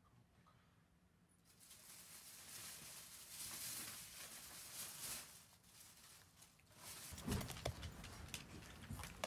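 Soft rustling and light pattering of pet paws on cardboard flooring, with a few low thumps and clicks in the last two seconds, the loudest part.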